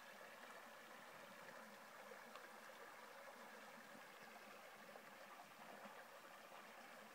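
Faint, steady rushing of a shallow stream flowing over gravel.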